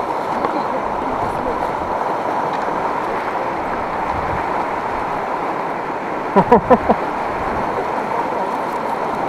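Steady rush of river water. About six seconds in, a person's voice gives four short syllables.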